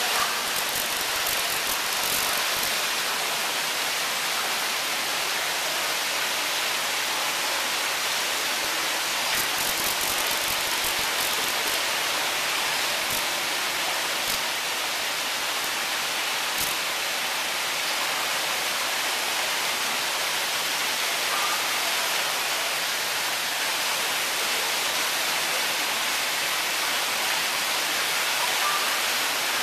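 Steady, even rushing noise, with a few faint clicks about ten to seventeen seconds in.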